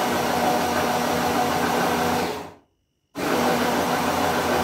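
Electric hand blender with its chopper attachment (a "rondo") grinding granulated sugar into powdered sugar, its motor running with a steady hum and whirr. It runs in two short pulses: it cuts off sharply about two and a half seconds in and starts again after about half a second. The short pulses rest the motor so it doesn't overheat.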